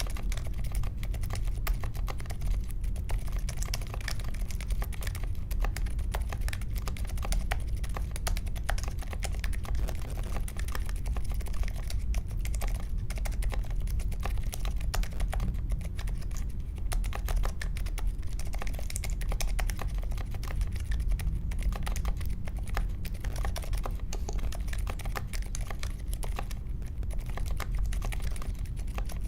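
Steady, fast typing on a mechanical keyboard with unlubricated Akko CS Vintage White linear switches in an aluminium case, foam- and tape-modded, with clipped stabilisers; a continuous stream of keystroke clicks.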